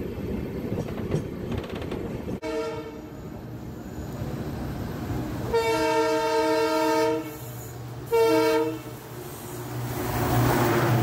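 Railway locomotive horn: faint at first, then a long blast and a shorter one, as a double-stack freight train comes head-on on the next track. Underneath runs the rumble of the coach's wheels on the rails, swelling near the end as the freight train draws alongside.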